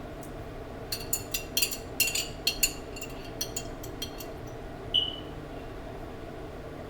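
A metal utensil clinking and tapping against dishware, a quick run of sharp clinks for about three seconds, then one ringing clink about five seconds in, over a steady low hum.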